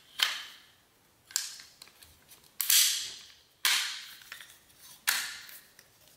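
Sharp metallic clacks, five of them about a second apart, each with a short ringing tail, as a Sig Sauer MCX Rattler rifle is reassembled after a trigger swap.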